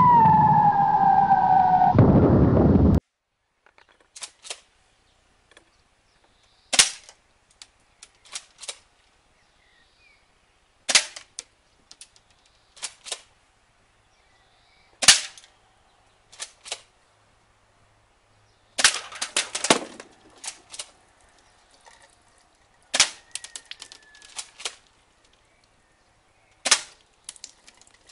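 A loud falling tone for about the first three seconds, then a Double Eagle M56A tri-shot spring airsoft pump shotgun firing six times, about every four seconds. Each shot is a sharp crack followed by lighter ticks, with a pair of softer clacks between shots as the pump is worked.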